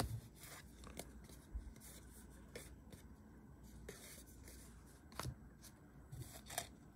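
Faint, scattered rustles and light clicks of trading cards being slid and flipped through by hand, with a few slightly louder ticks.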